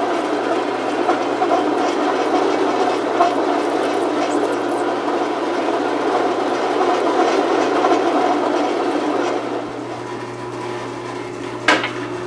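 Metal lathe parting off a spinning metal rod with a cut-off blade at slowed speed: steady cutting noise over the motor hum, with only mild chatter. About nine and a half seconds in the cutting noise falls away and the lathe keeps running, and a single sharp metallic clink sounds near the end.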